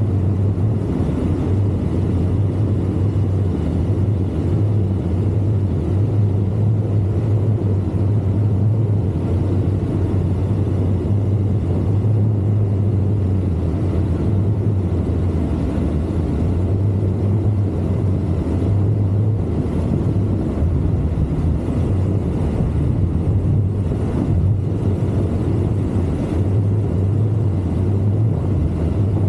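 Triumph Tiger motorcycle under way at a steady pace: a steady low rumble of engine and wind noise that swells and eases slightly.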